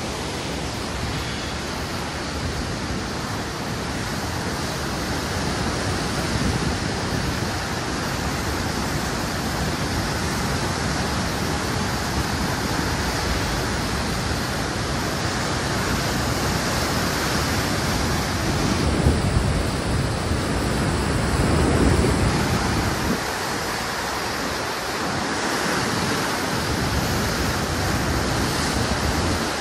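Flood-swollen Koshi River water pouring through the open gates of the Koshi Barrage: a loud, steady rush and roar of churning water, swelling briefly about two-thirds through.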